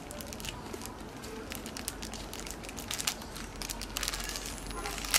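Plastic-foil snack packet crinkling and crackling in irregular bursts as a macaque bites and pulls at it, busiest about four seconds in, with one sharper crack at the end.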